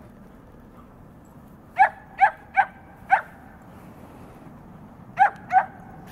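Dog barking in play: four quick barks, then two more a couple of seconds later.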